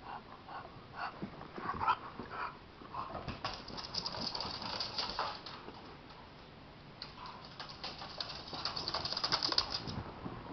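A bulldog and a chihuahua play-fighting. A run of short dog noises comes in the first two seconds, then two stretches of scratchy scuffling, from about three to five seconds in and again from seven to ten seconds.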